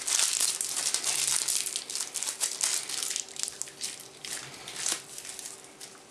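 Clear plastic bag crinkling as hands work it open: a dense crackle that thins to a few separate rustles after about three and a half seconds.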